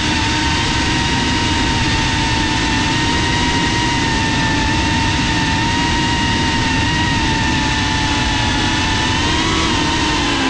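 FPV drone's brushless motors and propellers whining at a near-steady throttle: one high tone with overtones over a rushing noise. The pitch wavers up and down briefly near the end as the throttle changes.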